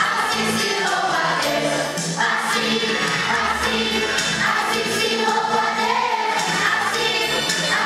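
Upbeat gospel song sung by a group of children with a backing track and a steady beat.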